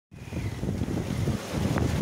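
Wind buffeting the microphone in a low, uneven rumble, over the hiss of waves and water rushing past the hull of a sailing yacht under way in a rough sea.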